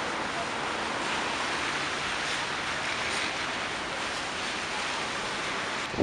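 Steady hiss of wind blowing outdoors, even and unbroken.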